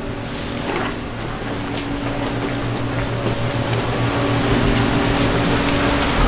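A steady machine hum under a rushing noise like running water, which grows louder, with a few light clicks and knocks.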